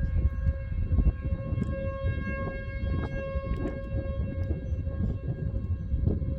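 Outdoor tornado warning siren sounding a steady held tone whose loudness swells and fades, signalling a tornado warning. A heavy low rumble and scattered sharp ticks sit underneath.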